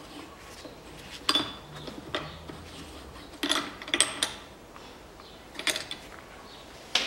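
A wrench clinking against the top nut of a car's front strut piston rod as the nut is run down, with a hex key holding the rod: a handful of sharp metallic clicks about a second apart.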